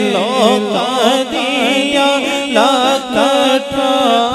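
Male naat reciter singing a long melismatic line into a microphone, his pitch bending and wavering, over a steady low drone.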